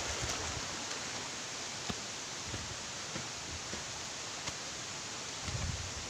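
Steady rush of flowing water, an even hiss, with a couple of faint clicks and a low rumble starting near the end.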